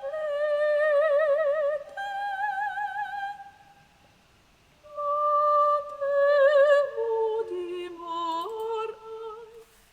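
A sung voice processed by the Vibra Voice vibrato device with its natural vibrato amplified to about twice its original depth, so each held note wobbles widely in pitch. It comes as two phrases with a short pause between them; the second phrase steps down through several notes.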